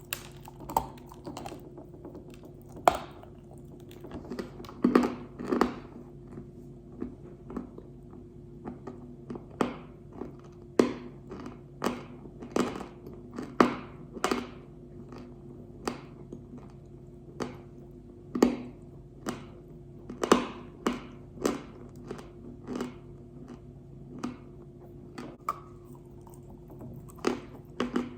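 Pink Uzbek edible clay being bitten and chewed: sharp, irregular crunches about once a second, some in quick pairs, over a steady low hum.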